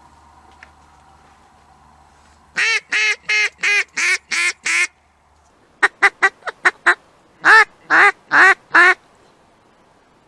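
A run of duck quacks: seven evenly spaced quacks, then six short quick ones, then four louder, longer quacks near the end.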